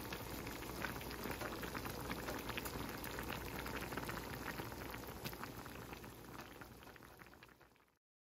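Doenjang jjigae, a soybean-paste stew with beef brisket and tofu, bubbling in a pot, with many small pops and a soft bubbling hiss; it fades out near the end.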